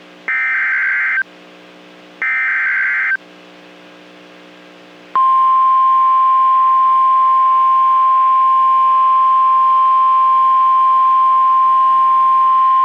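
NOAA Weather Radio emergency alert signal. First come the last two of the three SAME digital header bursts, each a harsh buzzing data screech just under a second long, about a second apart. About two seconds later the steady 1050 Hz Warning Alarm Tone starts and holds unbroken, marking a warning-level alert, here a newly issued severe thunderstorm warning.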